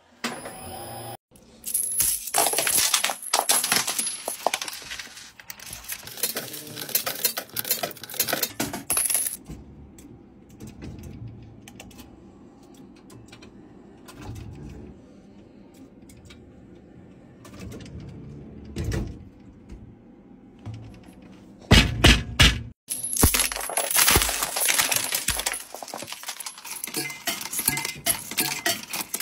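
Coins clattering and clinking in arcade machines, in two long, dense stretches of rapid metallic clicks. Between them comes a quieter stretch of low mechanical hum, where a claw machine is shown.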